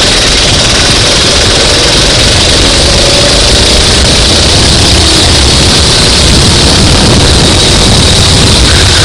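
Go-kart engine running flat out under racing load, very loud and harsh, its pitch drifting slightly up and down.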